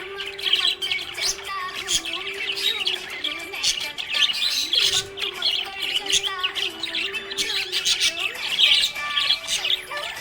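Budgies chirping and warbling in a dense, continuous stream of quick high chirps and short squawks. A steady low tone holds underneath, stepping in pitch now and then.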